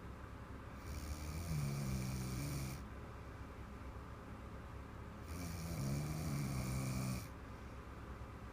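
A sleeping woman snoring, two long rasping snores about four and a half seconds apart with quieter breathing between them, in deep sleep after drinking wine.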